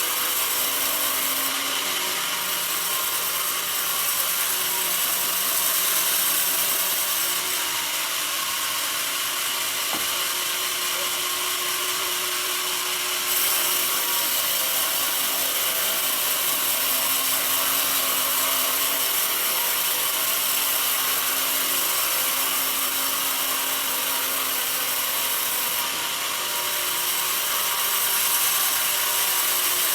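Sawmill band saw cutting through a mahogany log: a steady, continuous hiss of the blade in the wood, shifting a little in strength now and then.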